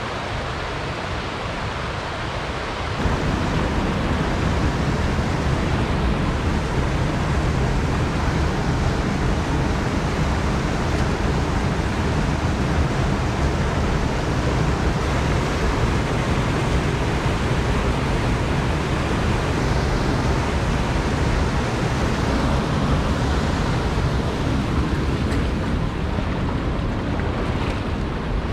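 Steady rush of a fast mountain stream's water tumbling over boulders, growing louder and deeper about three seconds in as the microphone comes close to the water.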